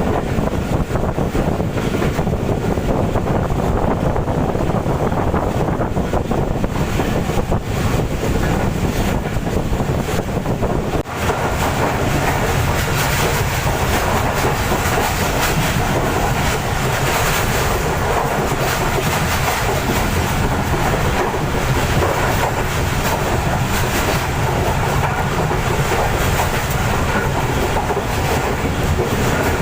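Passenger train wheels clattering over rail joints and points as the train moves off, with wind noise on the microphone. A brief lull about a third of the way in, after which the clatter sounds sharper and brighter.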